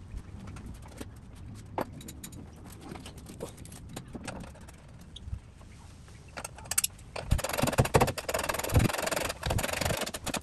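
Scattered metal clicks and knocks as a steel front crash bar is handled and offered up to a car's front end, then, about seven seconds in, a loud dense rattle with knocks lasting about three seconds.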